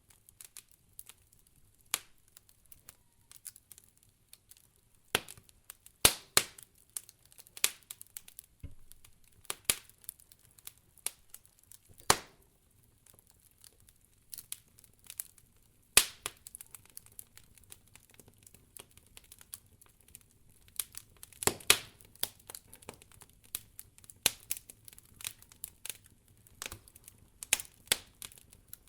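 Wood fire crackling, with irregular sharp pops and snaps, some much louder than others, over a faint steady low rumble.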